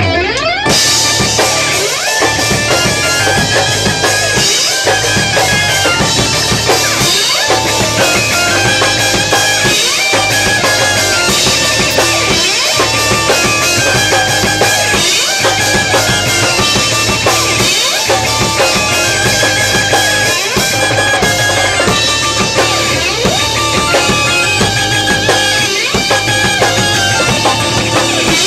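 Live rock band playing loud: drum kit with a steady bass-drum pulse, electric guitar, bass guitar and keyboard. The full band comes in together right at the start, after held keyboard or guitar tones.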